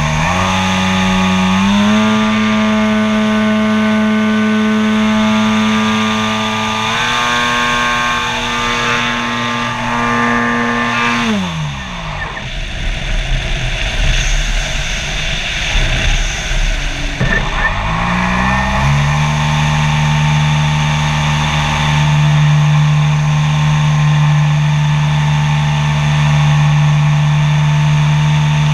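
Radio-controlled model airplane's propeller motor heard from on board. It runs at a steady pitch and steps up twice, then winds down and stops about eleven seconds in, leaving only wind rushing past during the glide. It comes back up about eighteen seconds in and holds steady.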